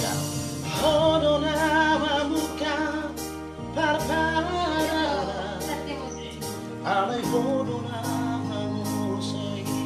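A man singing a slow song with wide vibrato and long held notes, over electronic keyboard accompaniment of sustained chords and a steady beat.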